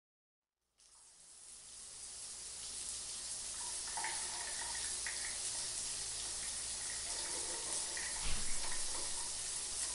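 Shower running: a steady spray of water that fades in from silence over the first couple of seconds, with a brief low knock about eight seconds in.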